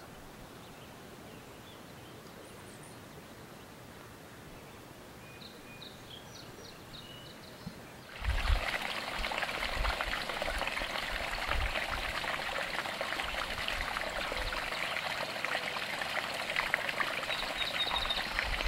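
Quiet outdoor background with a few faint bird chirps, then, about eight seconds in, a sudden switch to a steady rush of flowing, splashing water, with low wind thumps on the microphone.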